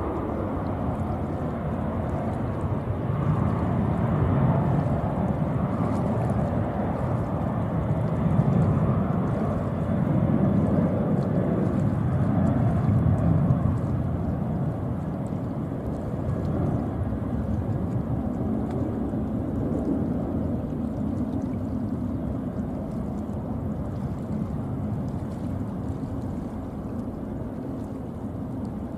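Distant rumble of a Boeing 777-300ER's GE90 jet engines as the airliner rolls along the runway. It swells a few seconds in, then slowly eases off.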